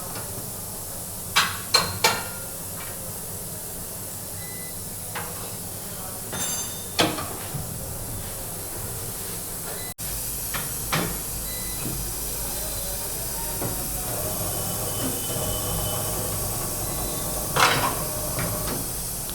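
Motorcycle tyre-fitting work: a handful of sharp knocks and clanks over a steady hiss, as the tyre is worked onto the wheel. The background steps up abruptly about halfway through.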